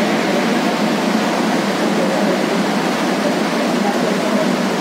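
Steady, even rushing noise of ventilation and air-conditioning on a metro station platform, with no distinct events.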